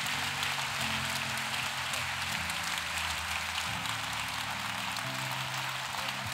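Congregation applauding, over soft music of low held chords that change every second or so.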